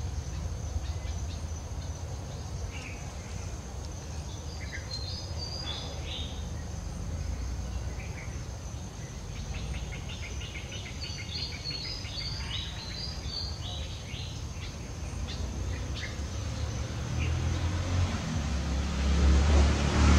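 Outdoor ambience: small birds chirping in short clusters of quick notes over a steady high insect drone and a low rumble. A low rumble grows louder near the end, like an approaching vehicle.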